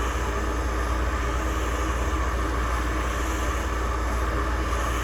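MAP gas torch burning with a steady roar, heating a Loctite-secured clutch hub nut to release the thread-locker.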